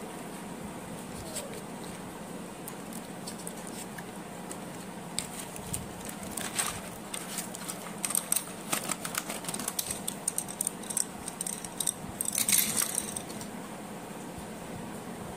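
Doms wooden pencils clicking and rattling against one another as they are slid out of their cardboard box and handled. The light clicks start about five seconds in, come thickest near the end, and stop a couple of seconds before it, over a steady faint hiss.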